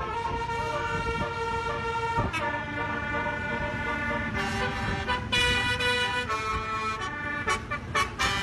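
Basuri multi-tone 'telolet' horn playing a tune: chords of several horn tones held for a second or two, then jumping to new pitches, over a low rumble. Near the end come a few short, quick blasts.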